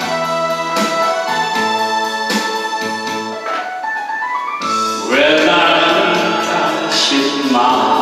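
Backing track of a Korean trot song: a keyboard-led instrumental passage, then about five seconds in a louder lead melody with vibrato comes in.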